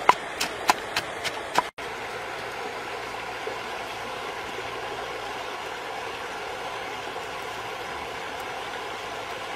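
A pestle pounding chilies in a clay mortar: a quick run of about six sharp knocks in the first two seconds. After that, a steady rushing of a shallow, rocky river.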